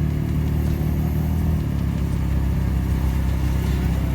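Car engine and road noise heard from inside the cabin while driving; the engine note drops a little about a third of the way through.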